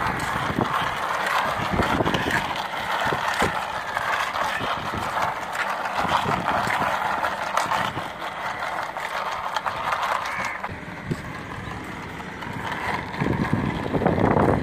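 Plastic wheels of a toy car rolling over a rough concrete ledge while pushed by hand: a steady rattling scrape with many small clicks and knocks, louder for a moment near the end.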